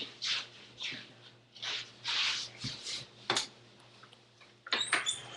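Scratchy brushing strokes of a hand strumming across a Paper Jamz toy guitar, about two strokes a second with no notes sounding, then a few sharp clicks near the end.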